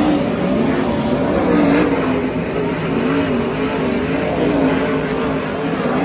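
410 sprint car's V8 engine running hard around a dirt oval, its pitch rising and falling over and over as the throttle comes on and off.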